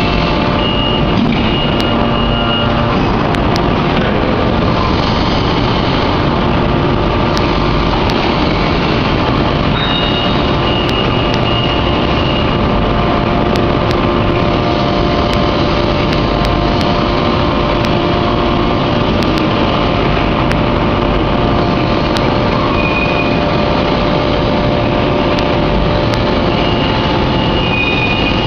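Hot forging press's hydraulic power unit running with a loud, steady mechanical drone made of several steady tones. Brief high whines come and go a few times, with faint scattered ticks.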